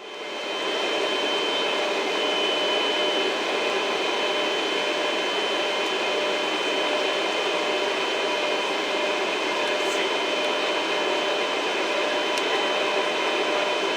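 Steady cabin noise of a jet airliner in flight: an even rush of air and engine noise with a steady whine running through it, rising within the first second and then holding level.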